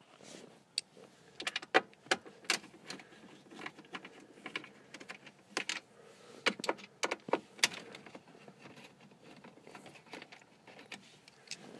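Scattered sharp clicks and taps of a Phillips screwdriver working the screws that hold a factory car stereo in the dash, at irregular intervals.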